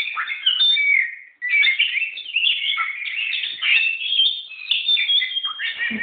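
Oriental magpie-robin (kacer) singing a fast, varied song of whistled and chirped notes, with a brief pause a little over a second in.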